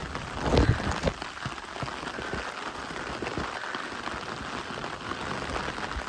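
Steady rain falling, heard as an even hiss, with a few low thumps in the first second or so.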